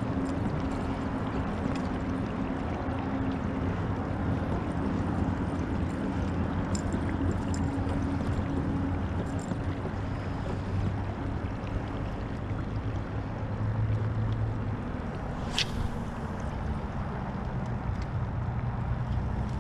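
Boat moving on the water: a steady low drone with water noise. One sharp click about fifteen seconds in.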